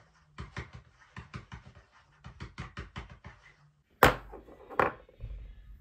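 Quick light taps and scratches of a pen writing on paper, then a sharp plastic crack about four seconds in and a smaller one just after, as a Funko pop pen with a figure topper snaps.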